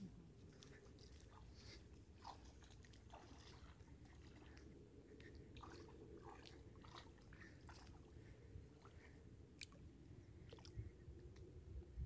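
Near silence: faint outdoor background with scattered short, soft clicks and crunches, a few each second.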